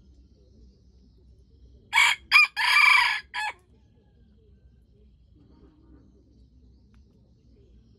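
Red junglefowl rooster crowing once, about two seconds in: a short crow in four parts, two quick notes, a longer held note and a clipped final note.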